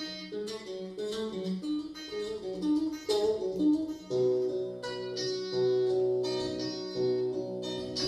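Music on a plucked string instrument: a run of short picked notes, then longer held notes from about four seconds in.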